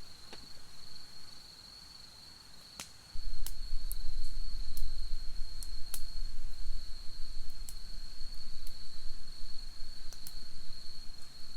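A steady, high-pitched insect trill runs on unbroken while a wood campfire gives off sharp, scattered crackles and pops. About three seconds in, a loud low rumble sets in underneath and stays.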